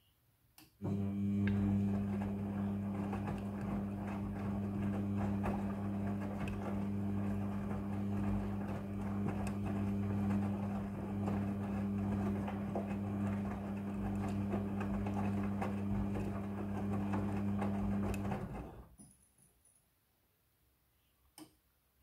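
Front-loading washing machine drum turning during the wash: a click as the motor starts, then a steady motor hum with the wet load tumbling and swishing for about eighteen seconds, winding down to a stop near the end as the drum pauses between tumbles. A single click follows near the end.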